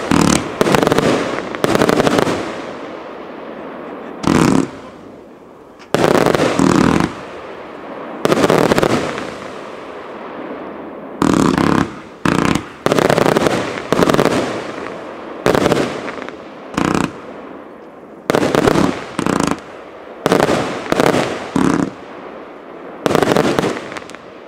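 Broekhoff Extreme Zensation fireworks cake firing: about twenty loud shots and aerial bursts, irregularly spaced and some in quick pairs, each followed by a long fading rumble of echo.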